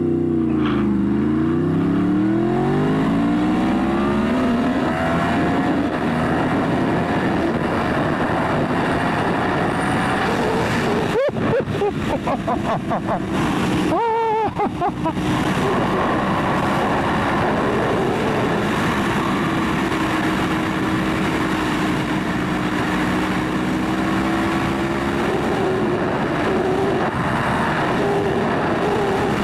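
2018 Yamaha R1 crossplane inline-four, with the cat deleted and a slip-on exhaust, under way at highway speed. Its pitch drops and climbs again, rises through the gears, breaks briefly twice around the middle, then holds a steady cruise.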